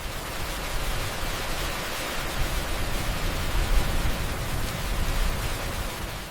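A steady rushing noise with a rumbling low end, unbroken throughout.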